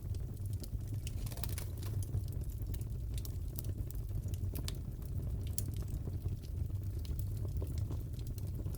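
Crackling wood fire in a fireplace: a steady low rumble with many small irregular pops and snaps scattered throughout.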